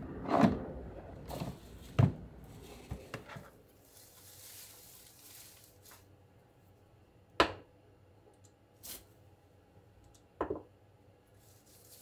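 Pruning shears snipping leafy branches: a handful of sharp, scattered snips, with a stretch of rustling leaves as the cut branches are handled.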